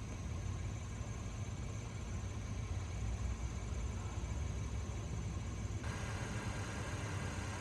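Steady low hum of an idling engine under even background noise; the noise shifts abruptly about six seconds in.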